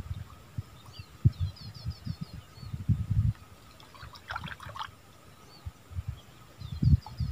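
Wind buffeting the microphone in irregular gusts, with small birds chirping in short quick runs.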